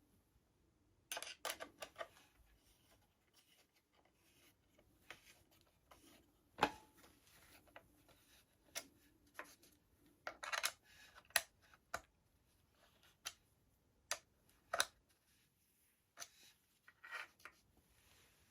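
Irregular small clicks, taps and brief rubbing and scraping of airsoft gun parts being handled, with a sharp click about six and a half seconds in and a quick cluster of clicks around ten to eleven seconds in.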